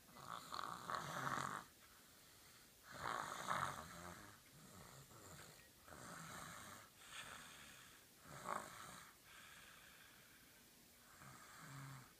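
Snoring: repeated snores, roughly one every one to two seconds, the loudest two coming in the first four seconds.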